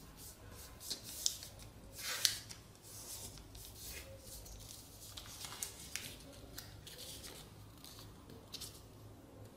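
A square sheet of paper being folded by hand: soft rustling and crinkling as it is shifted and creased flat, with two sharper crackles about a second and two seconds in.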